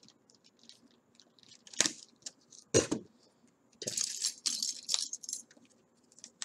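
Plastic packaging on a Pokemon card product being bitten and torn open with the teeth: scattered small clicks, two sharp crunches about two and three seconds in, then about a second of rustling near the middle.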